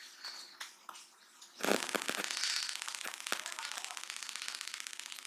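Soft wet squishes and clicks of fingers mixing rice and dal on a plate. About a second and a half in, a loud, rapid crackling starts suddenly and keeps going.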